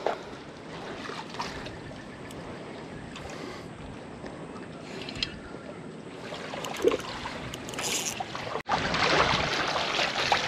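Steady wash of water and wind noise with a few faint clicks. It cuts out sharply about eight and a half seconds in and comes back louder.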